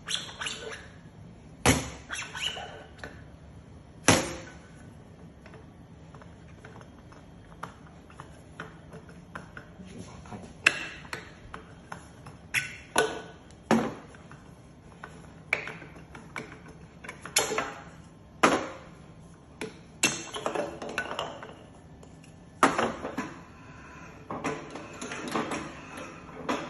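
Irregular clacks, knocks and clinks of metal and plastic parts being handled and fitted on the stainless-steel turntable of a Tosei SS21 semi-automatic shumai machine, some in quick clusters and a few much sharper.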